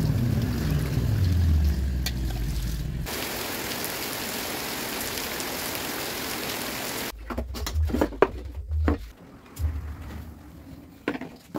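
A low rumble with water running from a hose into a metal pot, then steady rain falling on a wet road for about four seconds, then a few scattered knocks and clicks of kitchenware being handled.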